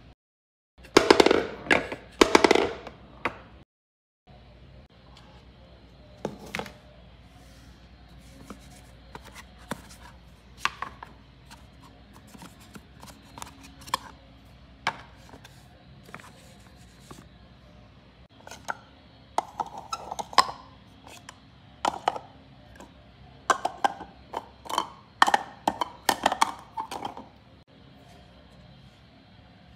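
Handling noises from unpacking a box of toys: cardboard cards and booklets rustling and flapping, and wooden toy pieces tapping and knocking on a hard floor, in irregular clicks and short clusters. The loudest handling comes about a second in and again in the second half.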